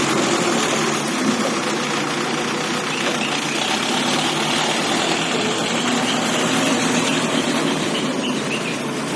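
Diesel engine of an ACE backhoe loader running steadily.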